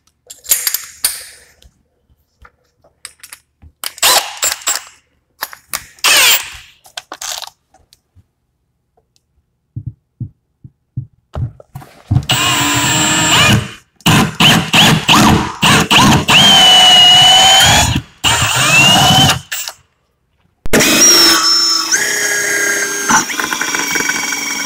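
Cordless drill spinning a 7/8-inch hole saw into the wall, in several runs with short stops; the motor's whine sags in pitch as the saw bites and then recovers. Scattered clicks and knocks come before the drilling starts.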